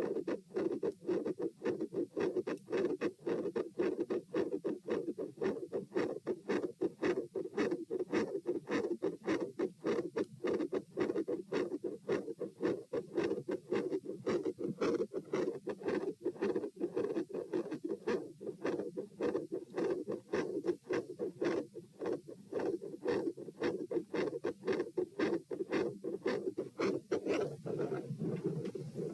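Heart sounds through a stethoscope: a loud, continuous murmur with rough, rapidly repeating pulses. Near the end the sound turns lower and duller.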